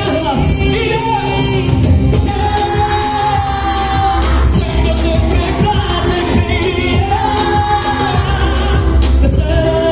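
Male pop singer singing live into a microphone over a loud backing track with a heavy bass beat, holding two long notes.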